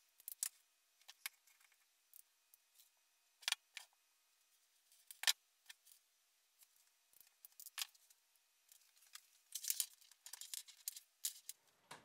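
Scattered sharp clicks and snaps of hand tools working a wire: a self-adjusting wire stripper stripping the insulation, and crimping pliers crimping an insulated Faston terminal onto the wire, with a denser run of clicks near the end.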